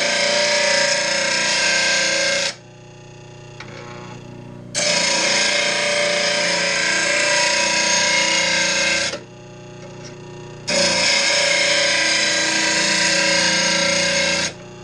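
RBG 712 mower blade sharpener grinding a steel mower blade in three long passes of about four seconds each. Between passes the wheel runs on more quietly, off the blade.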